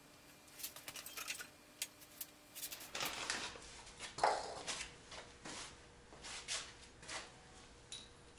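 Hand tools and small metal parts being handled: scattered light clicks, taps and knocks, sparse at first and busier from about three seconds in.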